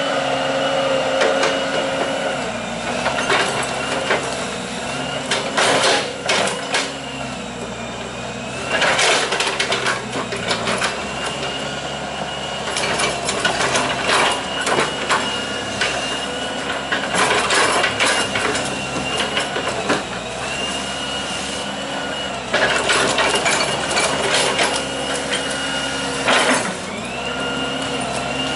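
Hitachi EX120 hydraulic excavator working: its diesel engine running steadily under a high hydraulic whine that rises and falls as the boom and bucket move, with frequent clanks and knocks from the bucket digging mud.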